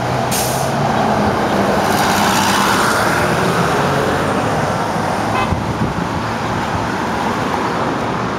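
Diesel engine of a vintage GM New Look transit bus pulling past close by, swelling in loudness and then falling in pitch as it goes by, over street traffic. A short hiss comes about half a second in.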